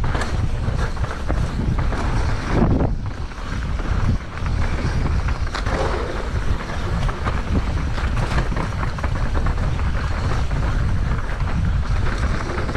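Wind buffeting the microphone, a steady low rumble broken by brief scattered rattles and crackles.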